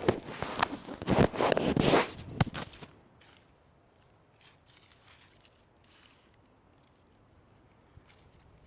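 Clothing and body rustling and scraping against a surface, with a few sharp clicks, as a person shifts onto the other side, for about two and a half seconds; then only a faint steady background.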